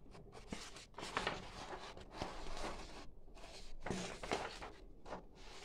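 Paper rustling and crinkling as the pages of a plastic model kit's instruction booklet are handled and turned.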